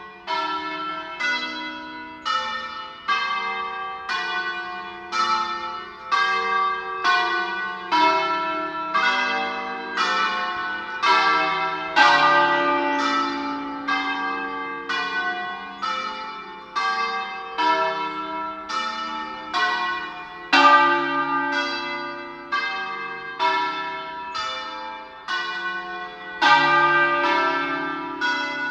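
A peal of church tower bells ringing in sequence, struck a little over once a second. Each stroke sounds at a different pitch and rings on into the next.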